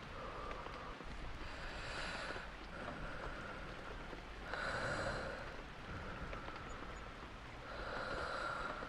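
Slow, steady human breathing close to the microphone, a louder breath about every three seconds with softer breaths between, over a steady hiss of rain.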